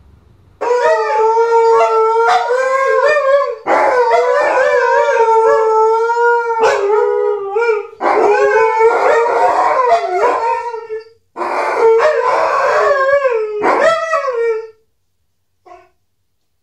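Alaskan malamutes howling: long, loud howls that waver in pitch, with more than one voice at once. They break off briefly a few times and stop about fifteen seconds in.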